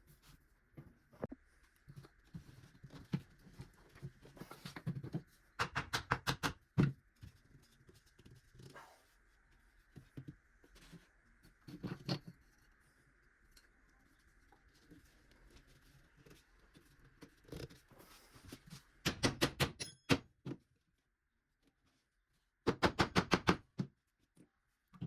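Small wooden workpieces being handled: scattered knocks, and three short bursts of rapid, evenly spaced clicking, one about six seconds in, one near twenty seconds in and one near the end.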